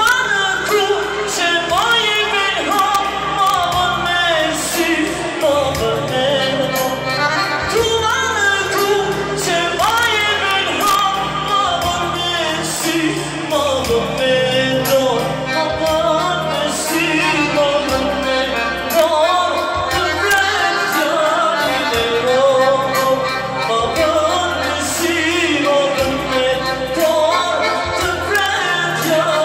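Live Albanian song: a man singing through a PA system over keyboard backing with a steady beat.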